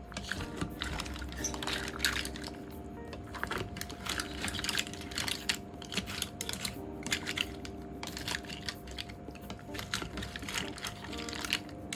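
Mussel shells clicking and clattering against each other and against a dish, in quick irregular taps, over soft background music.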